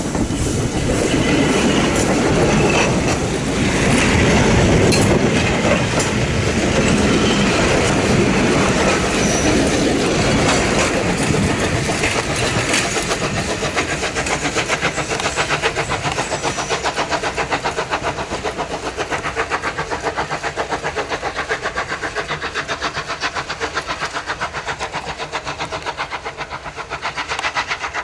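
Steam train's passenger carriages rolling past close by, wheels clattering loudly on the rails. After about twelve seconds the train draws away and the sound grows fainter, leaving a quick, even beat as the locomotive works on into the distance.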